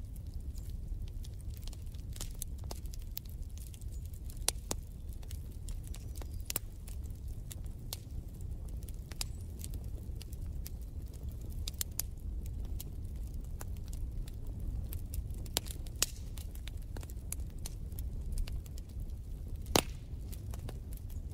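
Wood fire crackling in a fireplace: a steady low rumble of burning with scattered sharp pops, the loudest one near the end.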